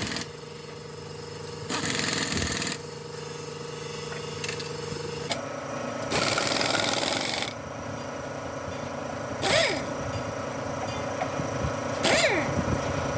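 A workshop machine hums steadily, its pitch stepping up about five seconds in, with two bursts of hiss and a few sharp metallic hits with ringing near the end.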